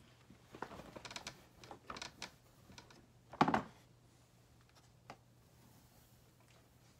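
Clicks and light knocks of tools and a clay slab being handled on a wooden work table, with one louder thump about three and a half seconds in.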